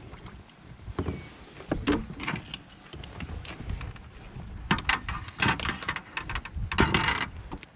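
Irregular knocks and clatter of a spinning rod and kayak paddle being handled against a plastic kayak, with a short, louder noisy burst of rubbing near the end.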